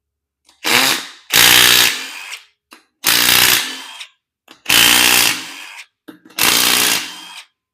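Impact wrench firing in five short bursts of about a second each, hammering on bolts on the engine's main bearing caps to break them loose.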